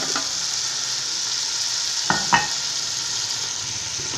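Onions, garlic-ginger and tomato paste frying in hot oil in a metal pot with spices just added: a steady sizzle. A metal slotted spoon clinks twice against the pot a little after two seconds in.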